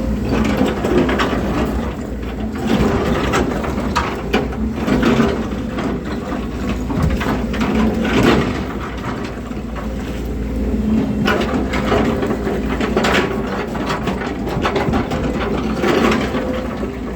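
Volvo crawler excavator's diesel engine running steadily under load, with frequent irregular crunches and clanks from the tracks and rock as the machine climbs over stones.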